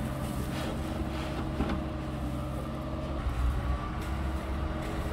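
An engine running steadily at constant speed, with one short knock about a second and a half in.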